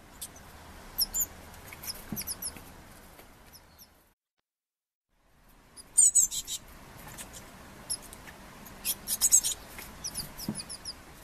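Eurasian blue tit fledgling calling: clusters of very high, thin, short chirps, broken by about a second of silence about four seconds in.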